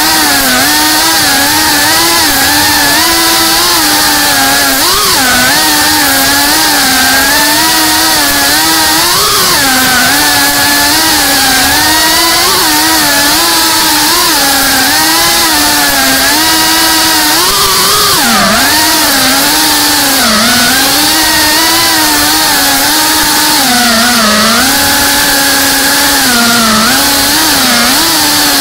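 FPV quadcopter's motors and propellers whining loudly in flight, the pitch constantly rising and dipping with the throttle.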